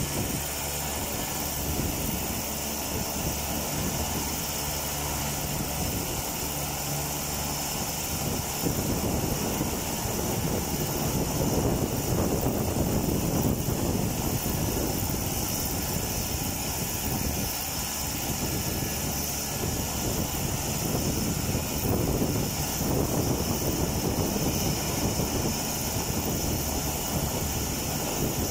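Cessna 208B Grand Caravan's PT6A turboprop running at low power on the ground, a steady turbine whine over propeller drone. From about eight seconds in, wind buffets the phone microphone.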